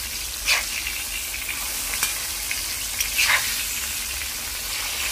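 Coated bombil (Bombay duck) pieces shallow-frying in oil on a low flame, a steady sizzle. A metal spatula scrapes the pan as the fish is turned, about half a second in and again around three seconds in.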